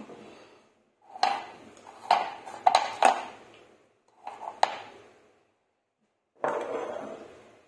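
Metal kitchenware clinking and knocking: a spoon in a mixing bowl and tin cans handled on a countertop. There are about five sharp clinks, each with a short ring, between one and five seconds in.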